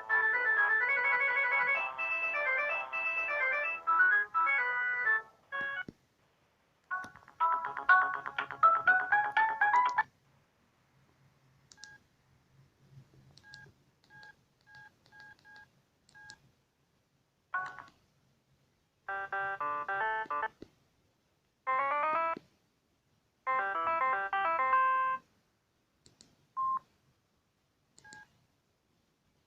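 Siemens C62 mobile phone playing a series of short ringtone melodies through its small loudspeaker, one after another with brief pauses between. In the middle comes a run of short, evenly spaced beeps, and near the end a couple of single beeps.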